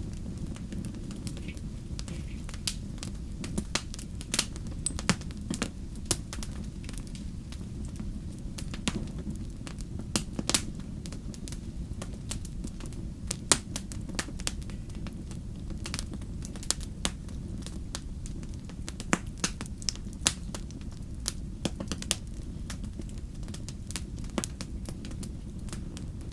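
Wood fire burning with a steady low rumble and many sharp, irregular crackles and pops.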